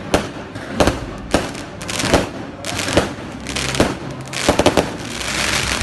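Fireworks going off in a string of sharp bangs, about one or two a second. About four and a half seconds in they run together into a quick burst of cracks, followed by dense crackling.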